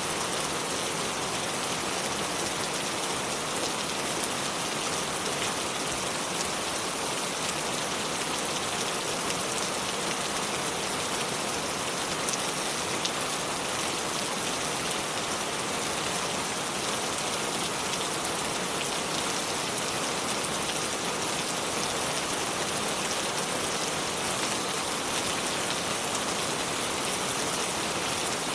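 River water flowing over stones: a steady, even rushing hiss with fine splashing, unchanging throughout.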